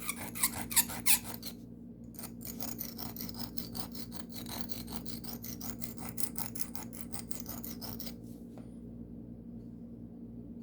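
A carbon steel pocket-knife blade is scraped back and forth on a sharpening stone in quick, even strokes, about five a second. There is a short break about one and a half seconds in, and the strokes stop about eight seconds in. The grinding is raising a burr on the edge.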